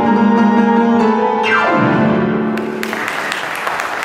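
Grand piano closing a song on a loud held chord, with a fast downward sweep about a second and a half in. An audience then applauds from about two and a half seconds in.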